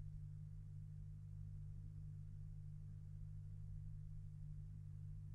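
Steady low hum with faint hiss from an old recording, heard in a pause between recited verses.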